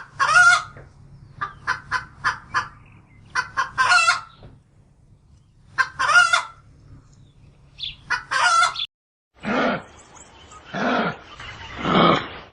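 Chickens clucking, with short clucks between louder calls about every two seconds. After a cut near the end, a different animal gives three rough, deeper calls.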